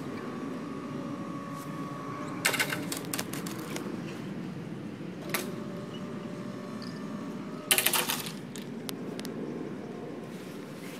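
Level-crossing barrier booms lowering: a short rattling clatter of rapid clicks about two and a half seconds in as the booms start down, a single click midway, and a louder rattling clatter about eight seconds in as they come to rest, over a steady hum.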